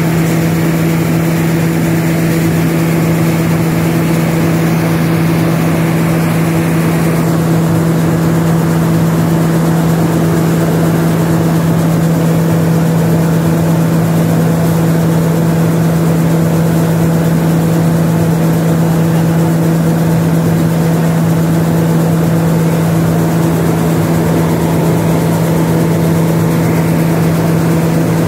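Paddy-processing machinery running with a loud, steady hum under a rushing noise. The higher part of the noise eases about seven seconds in.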